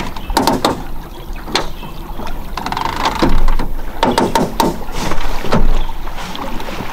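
Knocks and clunks inside a small jon boat as it coasts onto a sandbar, over a steady rush of wind on the microphone.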